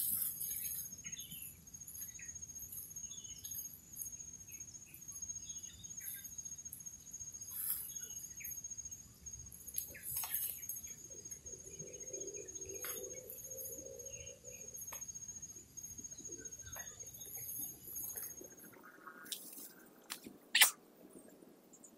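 Birds chirping now and then over a steady high-pitched insect whine, with a few soft rustles and clicks. The whine stops a few seconds before the end, and a single sharp knock follows, the loudest sound here.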